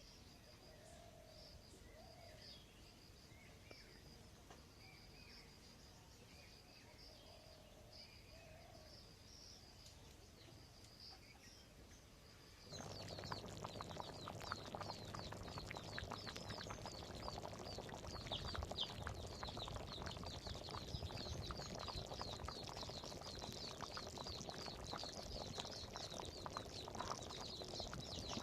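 Faint outdoor ambience of birds calling over a pulsing high insect buzz. About halfway through, the sound switches abruptly to a louder, dense chorus of many small birds chirping, with scattered clicks.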